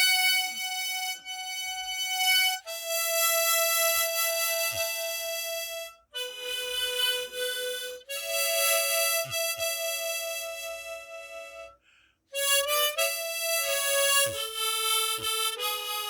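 Solo harmonica playing a slow melody in long held notes, its phrases broken by short pauses.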